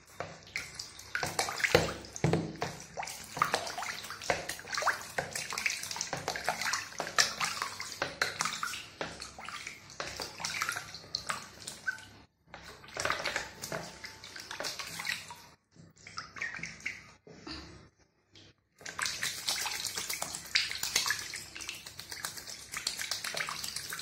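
Two young ducks splashing and paddling in a small plastic basin of water: irregular splashes and sloshing, with a few short pauses around the middle.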